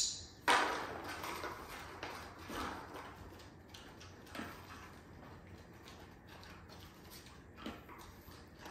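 A dog rummaging with its nose in a cardboard box lined with paper, rustling and bumping the cardboard. There is a sharp knock about half a second in, then a stretch of rustling and a few smaller bumps.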